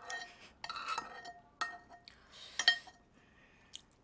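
Metal spoon clinking and scraping against a bowl of porridge: several separate clinks, each with a short ring, the loudest a little before three seconds in.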